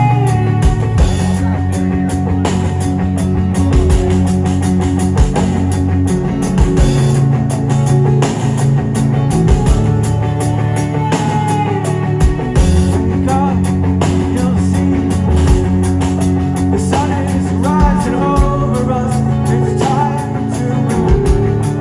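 Rock band playing live: electric guitars ringing over bass and a drum kit, loud and steady.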